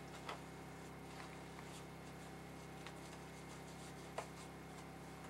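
Faint handling sounds of a dried fisher pelt being worked by hand: soft rustling of the stiff skin and fur with a few small clicks, the sharpest about four seconds in, over a steady low hum.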